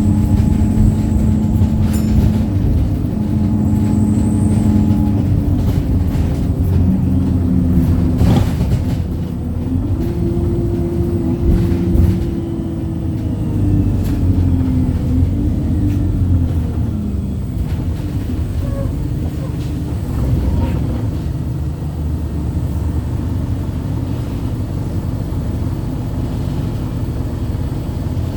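Wright StreetLite single-deck bus under way: the engine and driveline run with a steady rumble and a whine that shifts in pitch, then slides down in pitch over several seconds in the middle. A brief sharp noise about eight seconds in.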